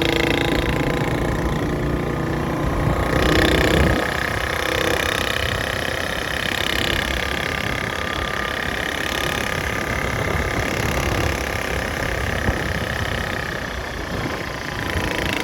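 A vehicle engine running steadily throughout, with a louder stretch a few seconds in.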